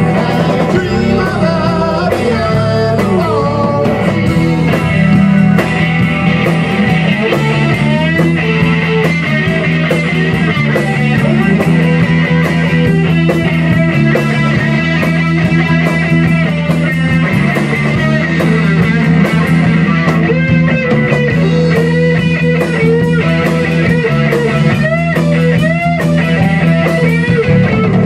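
Rock band playing an instrumental stretch: electric guitar playing a lead line with bent, wavering notes over electric bass and a drum kit.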